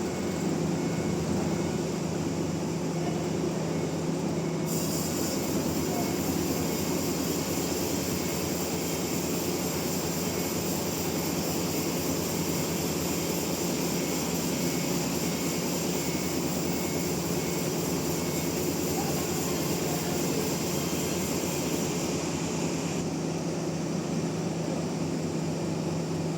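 Sawmill saw and machinery running steadily with a low hum. A higher hiss joins about five seconds in and stops a few seconds before the end.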